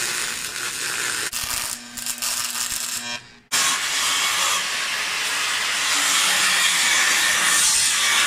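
Wood being sawn for a gate, a steady hissing rasp. It stops briefly just after three seconds in, then carries on.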